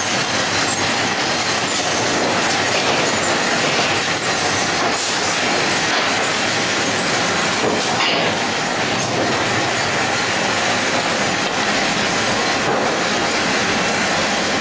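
Steady din of sawmill machinery: chain and roller conveyors running and carrying boards, with metallic clatter.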